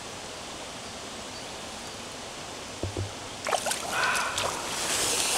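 Steady rush of river water, then from about three and a half seconds in, splashing at the water's edge as a small trout is released and swims off.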